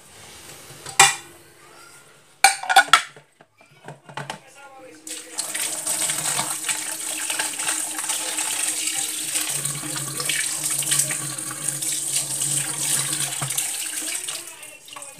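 Dishes knocking and clattering briefly, then water running steadily from a tap into a basin for about nine seconds. The running water starts about five seconds in and stops near the end.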